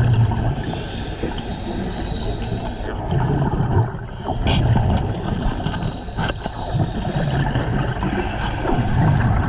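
Muffled underwater sound of divers' exhaled air bubbling and gurgling in repeated low surges, with a few sharp clicks.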